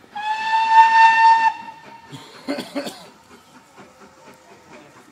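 Steam locomotive whistle: one blast about a second and a half long, steady in pitch after a slight rise at the start. Two short sharp sounds follow about a second later.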